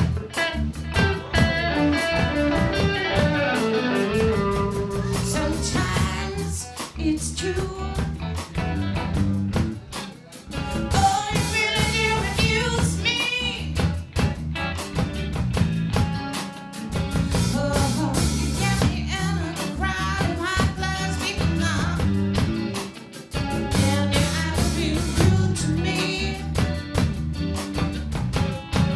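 A singer with a band playing blues-rock: a sung vocal line over guitar and drums.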